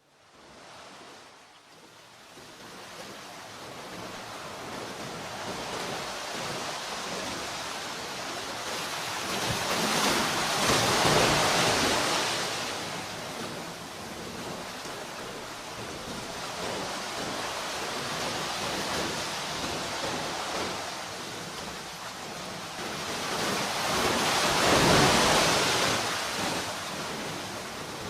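Sea waves breaking and washing up the shore as a steady surf, fading in at the start. Two bigger breakers swell and crash, one about a third of the way in and one near the end.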